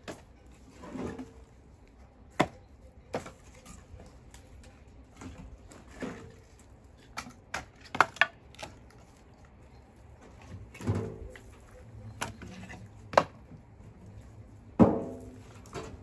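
Split firewood logs knocking together as they are handled and tossed onto a pile: a dozen or so irregular sharp wooden knocks, with a few longer clatters as logs tumble.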